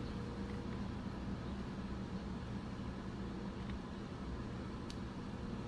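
Steady low room hum, with a few faint ticks as a micro flathead screwdriver works at a tiny screw in the camera's viewfinder housing.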